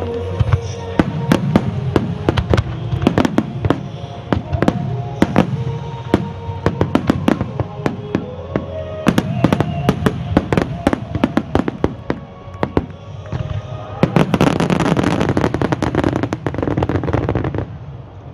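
Aerial firework shells bursting in quick succession, dozens of sharp bangs, with music playing underneath. About fourteen seconds in the bursts merge into a dense, continuous barrage that cuts off suddenly shortly before the end.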